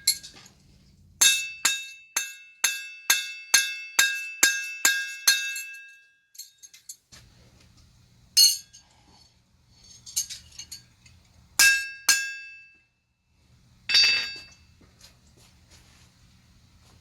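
Hammer cold-forging a thick bar of Zapp Z-Tuff tool steel on an anvil. A quick run of about ten strikes comes at two or three a second, then a few scattered blows with pauses between. Each blow leaves a short, high metallic ring.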